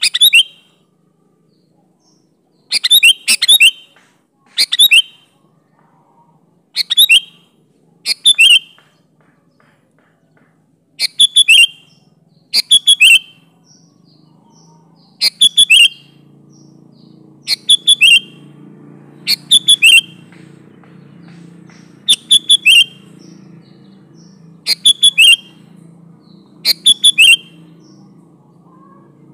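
Sooty-headed bulbul (kutilang) calling: loud, short chirping phrases of one to three notes, repeated every second or two. A faint low hum joins in the background about halfway through.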